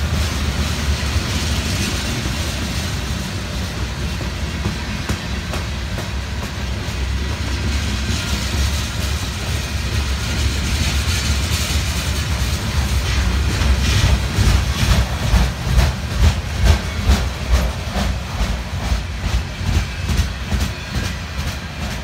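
Freight cars rolling past on the track: a steady low rumble of steel wheels on rail, with clickety-clack of wheels crossing rail joints that grows louder and more rhythmic about two-thirds of the way through.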